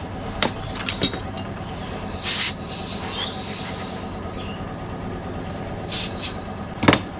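Compressed-air blow gun giving three hissing bursts to blow loose sand off a greensand mould, the middle burst the longest, with a few sharp clicks between. A steady machine hum runs underneath.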